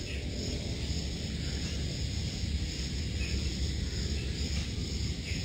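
Steady outdoor background noise: a low rumble under a faint high hiss, with no distinct sound from the peeling itself.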